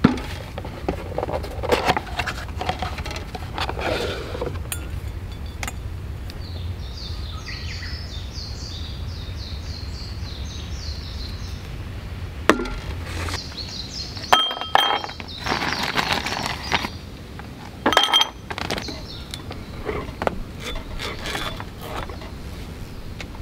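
A cardboard whisky box being handled and opened on a wooden camp table, with light taps, scrapes and clicks. Two sharp glass clinks ring out a little past the middle, a few seconds apart, over a steady low rumble.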